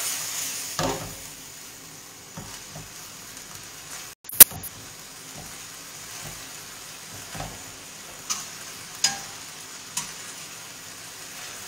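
Spaghetti sizzling in a frying pan as it is tossed and stirred through its prawn sauce, the sizzle loudest at first and then settling; a utensil clicks against the pan a few times. About four seconds in there is one sharp, loud knock.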